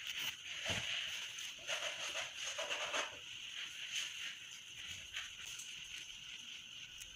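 Irregular rustling of fabric and thread as hands work a crochet hook and needle through the cloth, loudest in the first three seconds, over a steady high-pitched background tone.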